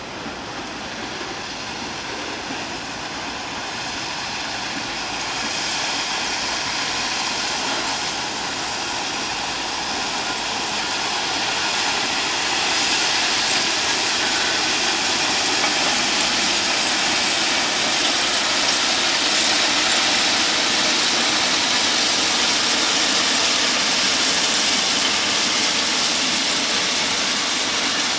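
Rail vehicle running with a steady mechanical drone and many high whining tones, growing gradually louder as it draws nearer.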